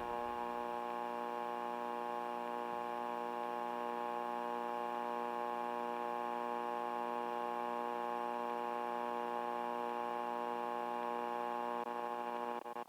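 Steady electric buzz with many overtones from a guitar rig through its effects pedals while the strings are not played, holding at an even level. It breaks off near the end as the guitar is picked again.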